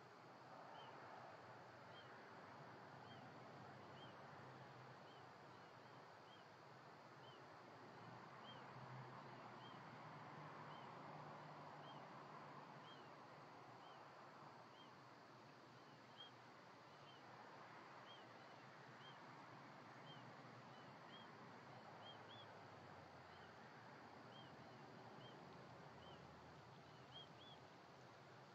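Faint high chirps from a small animal, repeated steadily about three times every two seconds, over a soft background hiss and a faint low hum.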